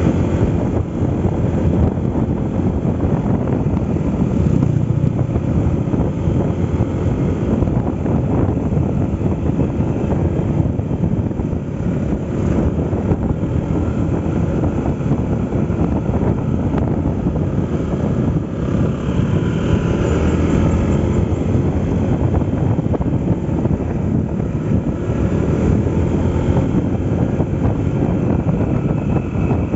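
Riding noise from a Honda ADV 160 scooter on the move: the engine running steadily under a continuous rush of wind over the microphone.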